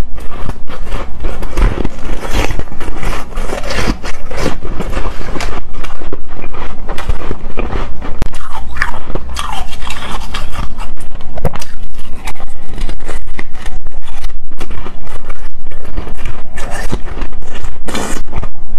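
Close-miked biting and chewing of a chunk of coloured frozen ice, a dense, continuous run of crunches and crackles.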